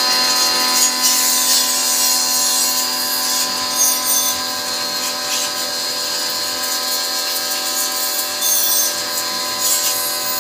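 Pressure washer running steadily, its motor and pump giving a loud, even hum with the hiss of the water jet spraying onto a motorcycle.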